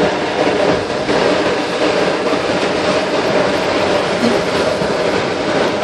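Car driving on a rain-soaked road, heard from inside the cabin: a steady hiss and rumble of tyres on wet pavement with road noise.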